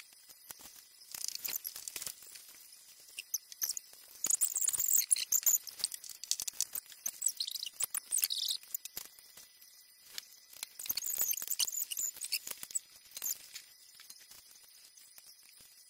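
Small plastic LEGO pieces clicking and rattling as they are picked from a loose pile and fitted together, in scattered clicks with several bursts of dense, scratchy clicking.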